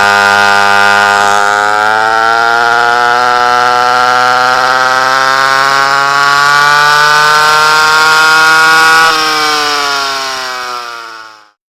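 Vintage rear-engine kart's two-stroke engine heard from on board at racing revs, its high whine slowly climbing in pitch as the kart accelerates. About nine seconds in the revs drop off and the sound fades away.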